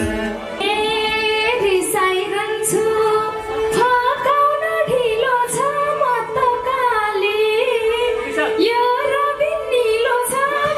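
A woman singing a Nepali dohori folk verse in a melismatic, ornamented line into a microphone, starting about half a second in, over a steady held accompanying note.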